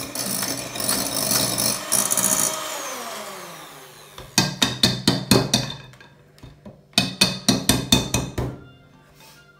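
Electric hand mixer whipping egg whites to stiff peaks, its motor whirring and then winding down with a falling whine. The beaters are then knocked against the rim of a ceramic bowl in two quick runs of sharp knocks, about four a second, to shake off the whipped whites.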